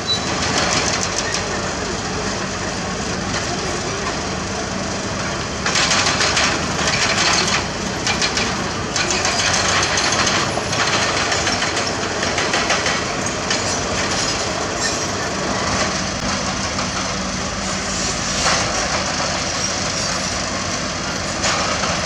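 Diesel engines of heavy road-construction machinery (excavators and dump trucks) running steadily. Several spells of loud metallic scraping and clanking rise over the engines, a few seconds each.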